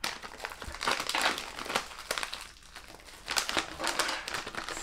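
Crinkling packaging being unwrapped by hand as a blind-packaged plush toy is opened: a rapid run of crackles with a brief lull about halfway through.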